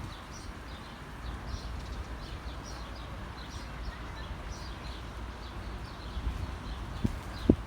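Small birds chirping: short high notes repeating two or three times a second over a low steady rumble, with a sharp knock near the end.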